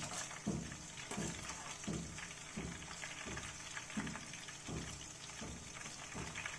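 Raw banana slices deep-frying in hot mustard oil in a kadai, sizzling steadily, while a perforated slotted spoon stirs through the oil in regular strokes about every two-thirds of a second.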